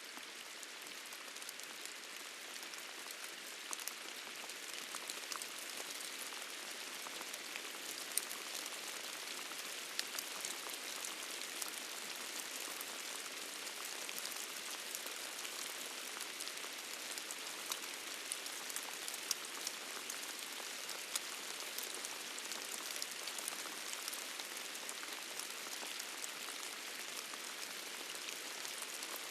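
Steady rain: an even hiss of rainfall with many small drop ticks scattered through it, fading in slightly at the start. There is no thunder.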